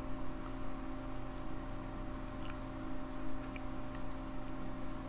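Steady low electrical hum and room tone, with two faint ticks in the middle.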